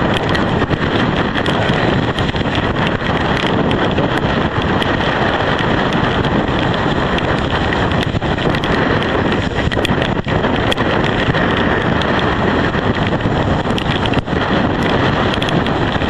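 Strong storm wind from Hurricane Irene buffeting the microphone: a loud, steady rush with many small clicks through it, the rough water of the lake lost underneath.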